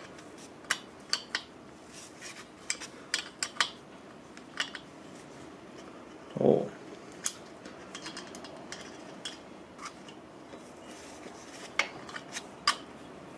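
Light metal clicks and clinks, a dozen or so at uneven intervals, of a wrench working the adjuster of an S&S Quickee adjustable pushrod as it is turned out a counted number of turns to set lifter preload. A short, duller low sound comes about six and a half seconds in.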